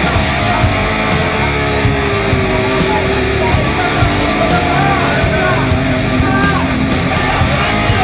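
Rock music with electric guitar, playing steadily and loud.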